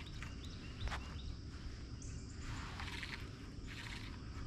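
Faint outdoor ambience with a few short bird chirps and several brief, rapid trills, over a low wind rumble.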